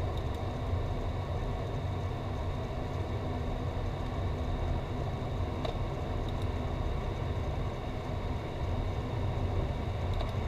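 Steady rumble of airflow and engine noise inside the cockpit of a Dassault Falcon 50EX business jet on approach, its three turbofans at low power, with a faint steady high whine above it.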